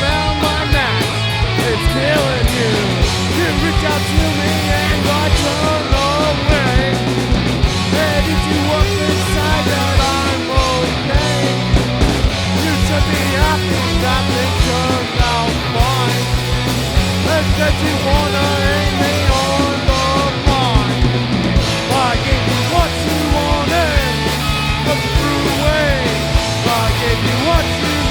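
Rock band playing an instrumental passage with no vocals: distorted electric guitars over bass and drums in a punk-rock style, with a lead line full of bent notes.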